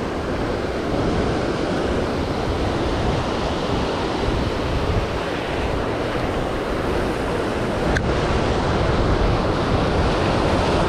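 Ocean surf breaking and washing over shoreline rocks, a steady rushing wash, with wind buffeting the microphone. A single small click sounds about eight seconds in.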